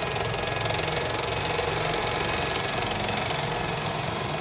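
M1A1 Abrams tank driving at speed, its gas-turbine engine and tracks making a steady, loud mechanical noise.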